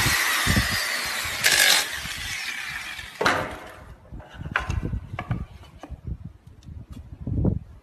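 Power miter saw winding down after a cut through painted wooden molding, its hiss and whine falling away over the first two seconds. Then come scattered knocks and taps of the wood pieces being handled on the saw table, and a louder thump near the end.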